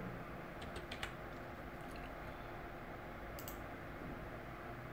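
A few faint computer keyboard keystrokes about a second in, then a quick pair of clicks about three and a half seconds in, over a low steady hiss.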